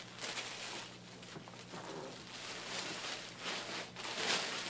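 Clear plastic packaging bags crinkling and rustling as soft fleece items are pulled out of them and handled, with a louder crinkle near the end.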